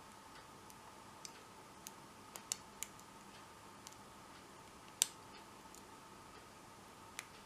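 Faint, irregular metallic clicks of a hook pick working the pin tumblers of a 40 mm Abus My Sport padlock under tension, the kind of clicks heard as pins are lifted and set during single pin picking. There are about eight clicks, and the sharpest comes about five seconds in.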